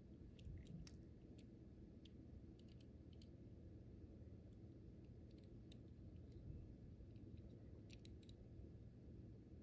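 Near silence with faint, scattered light clicks of fingers handling a small die-cast toy car.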